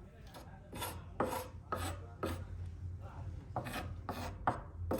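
Repeated rasping strokes of hand food preparation, about two a second and unevenly spaced, over a low background hum.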